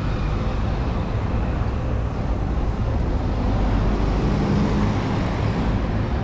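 City street traffic: a steady low rumble of passing cars, with one vehicle's engine growing louder around four to five seconds in.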